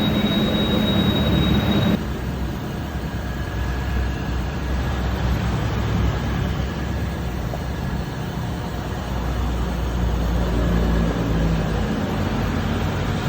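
Baoji CQ6280C lathe running with a steady mechanical drone. A high whine and a low hum over it cut off abruptly about two seconds in, leaving a lower, steadier running noise.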